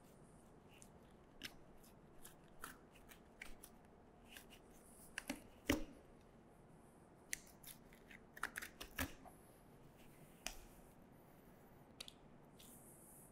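Knife cutting meat from the bones of a hanging deer carcass: scattered soft clicks and scrapes of the blade. The loudest click comes a little before the middle, and a cluster follows about two seconds later.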